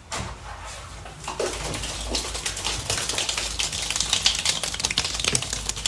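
A group of penguins moving on a wet concrete floor, making a rapid clatter of small taps and slaps that grows denser from about two seconds in.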